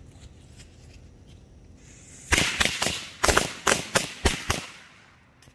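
A string of Dominator Thunder Bomb firecrackers going off: after a brief hiss about two seconds in, a rapid, irregular run of about a dozen sharp bangs over some two seconds.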